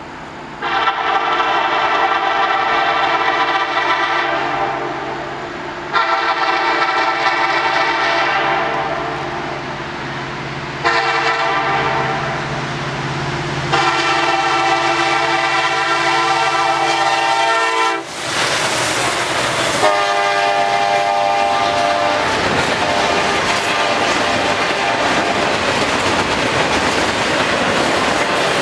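An NS SD70ACe diesel locomotive's horn sounds the grade-crossing pattern as the train approaches: long, long, short, long. About 18 seconds in, the locomotives pass in a loud rush, with one more brief horn blast at a lower pitch, then the steady rumble and clatter of the intermodal cars on the rails.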